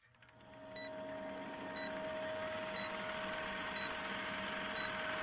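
Film-projector countdown-leader sound effect: a projector running with a steady hum and a rapid clatter, with a short beep about once a second as the numbers count down. It fades in over the first second or so.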